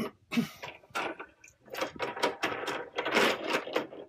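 A quick, uneven run of clicks, knocks and clinks from handling the air-cartridge fill base and the refillable air cartridges once filling is done.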